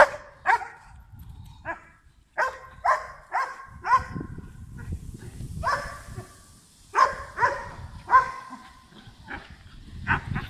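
A dog barking over and over: short barks about two a second, in runs of two to four with brief pauses between.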